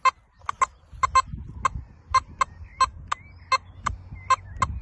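Nokta Makro Simplex metal detector giving a broken signal: a choppy string of short, irregularly spaced beeps of one pitch, about three a second. This broken tone is the machine's way of discriminating a target it takes for iron.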